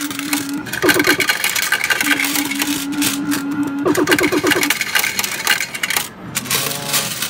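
Pound coins clinking and scraping as a hand scoops them out of a fruit machine's metal payout tray. Over it, a loud electronic jingle repeats a phrase of quick notes followed by a held tone, twice.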